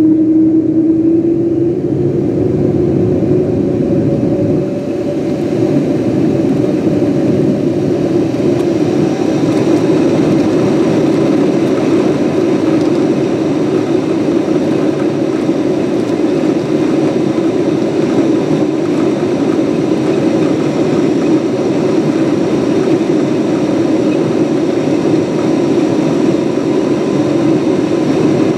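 Boeing 777-200's Pratt & Whitney PW4000 turbofans at takeoff thrust, heard from inside the cabin during the takeoff roll. A strong engine tone rises slightly in the first couple of seconds, then settles into steady loud engine noise.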